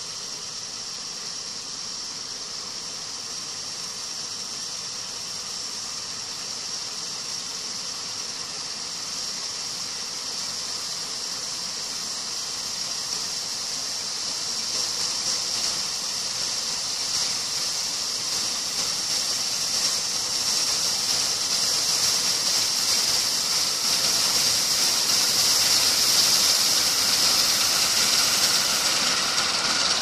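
Combine harvester cutting oilseed rape, its engine and threshing drum making a steady rushing hiss. The sound grows steadily louder as the machine approaches.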